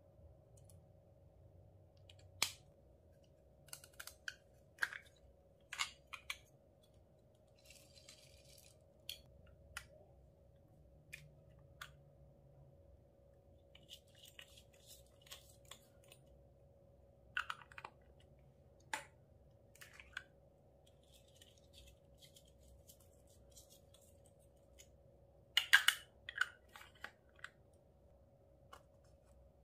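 Scattered light clicks and taps of small plastic topping containers and a tool against a glass dish, with a few short, hissing pours of sprinkles and foam beads onto slime. The loudest cluster of clicks comes near the end, over a faint steady hum.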